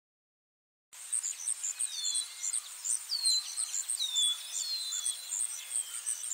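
Birdsong and insect-like chirping: a short high chirp repeating about four to five times a second, with a falling whistle about once a second, starting about a second in after silence.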